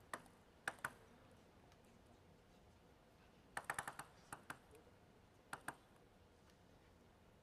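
Table tennis ball clicking sharply off the table and bat, mostly in pairs a fraction of a second apart, with a quick run of rapid bounces about halfway through.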